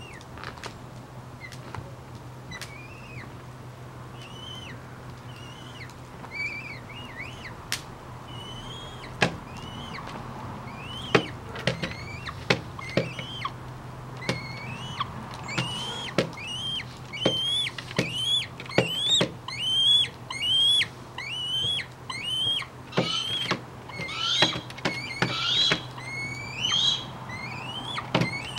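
Young tiercel northern goshawk calling over and over with short upswept cries, sparse at first, then about one a second and louder in the second half. Sharp clicks of its talons on the plywood table and the leather lure run through the calls, over a low steady hum.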